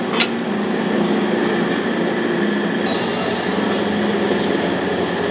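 Steady roar of a busy wok stall's stove and ventilation. A metal ladle clinks once against the plate about a quarter second in.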